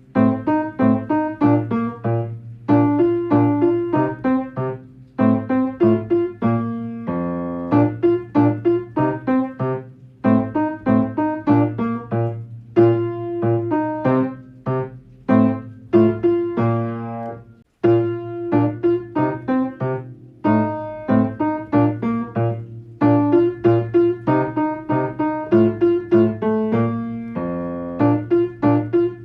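Solo piano playing a lively children's song accompaniment in short, repeated chords, with a brief held flourish about seven seconds in and again near the end.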